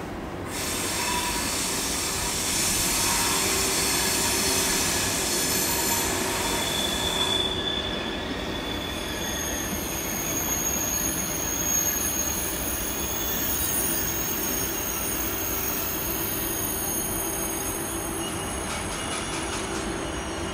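Thalys high-speed train rolling slowly on curved station track, its wheels squealing. A loud hiss runs for the first seven seconds or so, then high, shrill squeal tones from about nine seconds in, over a steady hum.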